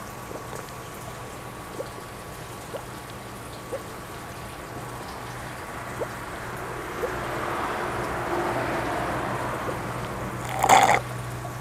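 Shabu hot-pot broth simmering, with small scattered bubbling pops and a bubbling hiss that swells past the middle. A brief, loud clatter comes near the end.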